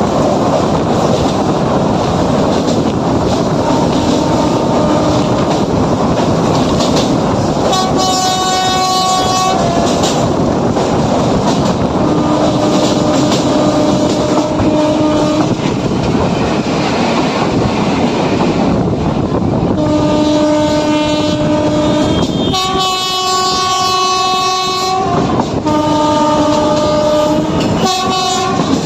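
Indian Railways local passenger train running at speed, its wheels clattering over the rail joints under a steady rumble, while it sounds its horn in repeated long blasts. The blasts come about six times, most of them in the second half, the longest lasting about three seconds.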